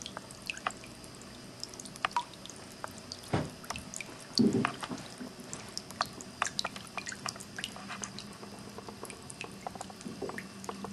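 Water falling in irregular drips and trickles from a handmade ceramic cat drinking fountain, over a light steady hiss of flowing water. There is one louder, lower plop about four and a half seconds in.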